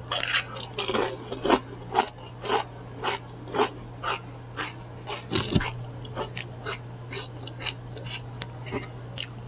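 Crunchy food being chewed close to the microphone, about two crunches a second, growing softer in the second half.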